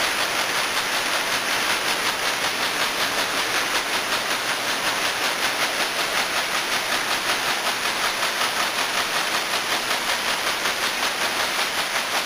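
Servo-converted multi-needle quilting machine running, its needles stitching in a fast, even clatter over a steady hiss.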